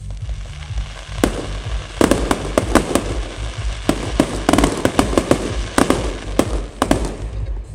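Fireworks display: a single bang about a second in, then a rapid volley of sharp bangs and crackling from about two seconds in, easing off near the end. A steady low rumble runs underneath.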